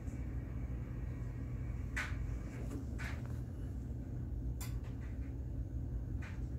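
Hands handling an Air Jordan 11 Retro sneaker: a few soft rustles and rubs of the nylon mesh and patent leather about two and three seconds in, a sharp click a little later, and another rustle near the end, over a steady low hum.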